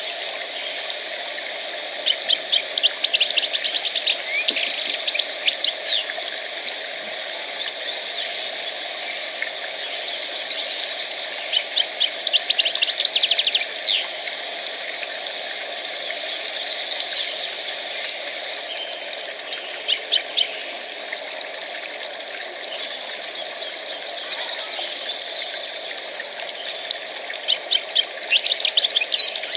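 A songbird singing in four bursts of rapid, high, trilled notes, each lasting a second or a few seconds, with pauses between them, over a steady background hiss.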